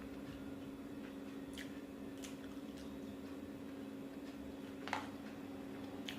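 Close-up mouth sounds of someone chewing a burger: a few short wet clicks and smacks, the loudest about five seconds in, over a steady low hum.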